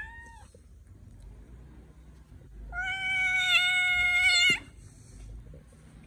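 Domestic cat meowing: the tail of a short meow fades right at the start, then nearly three seconds in comes one long, level meow lasting about two seconds.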